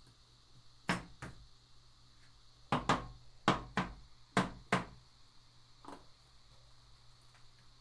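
Yellow paint shaken from a small container splatting onto the paint-covered paper board in a series of sharp smacks, mostly in pairs, about nine in all, the last a little apart from the rest.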